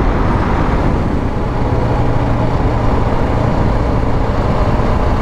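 Motorcycle engine running steadily at road speed, with steady wind rush on the microphone.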